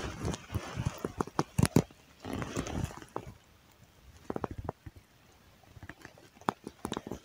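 Close handling noise: irregular clicks, taps and short bursts of rustling as hands work the fishing rod, line and hook.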